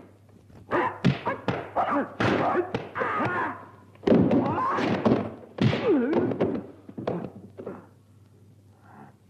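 Kung fu film fight sound effects: a rapid series of punch, kick and body-fall impacts mixed with the fighters' sharp yells and grunts. It dies down near the end.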